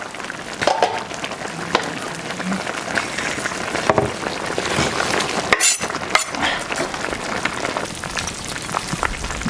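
Pot of duck stew boiling over a wood fire: a steady bubbling, sizzling hiss with scattered sharp pops and clicks, one of the loudest a little past halfway.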